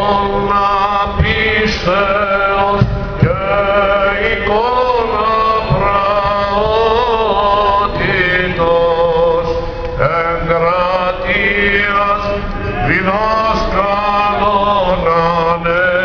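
Greek Orthodox Byzantine chant sung by male voices: a slow, ornamented melody winding up and down, with a low note held steadily beneath it as a drone that shifts pitch now and then.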